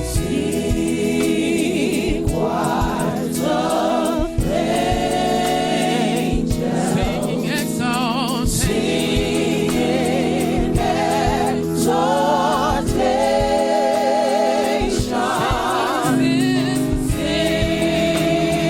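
Gospel choir singing a worship medley with instrumental accompaniment, held notes sung with vibrato over a steady low backing.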